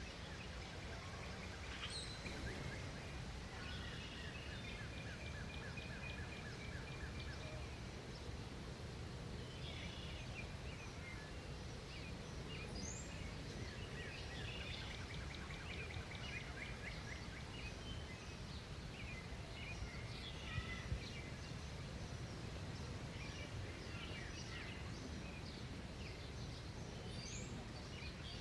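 Small songbirds chirping and trilling, several rapid trills of evenly repeated notes with scattered short calls, over a steady low outdoor rumble. Two brief louder sounds come about two-thirds of the way through.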